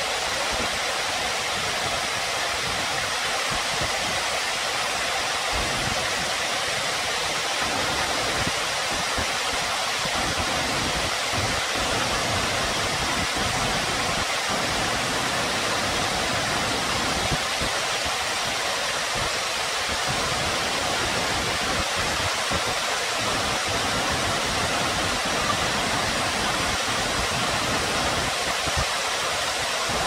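Waterfall: many thin streams of water falling down a mossy rock face and splashing onto the rocks below, a steady, even rush of water with little low rumble.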